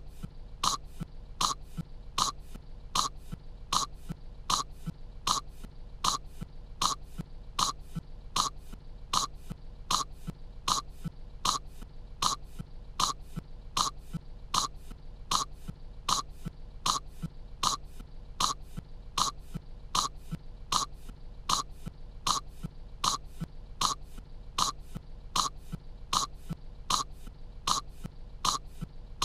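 A cartoon girl's voice coughing in short, even coughs, about two a second, repeated over and over as a loop: kettle corn caught in her throat.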